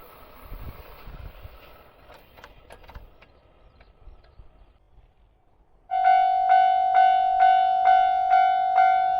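A passing train fades away with a few sharp clicks of wheels over rail joints. About six seconds in, a Japanese level crossing's electronic warning bell starts its evenly repeated clang, about two strikes a second, the signal that a train is approaching the crossing.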